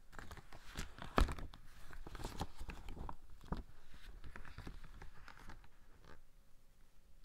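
Silicone swim cap squeezed and flexed in cotton-gloved hands: a dense run of rustling and crackling with many small sharp clicks and one louder snap about a second in, dying down near the end.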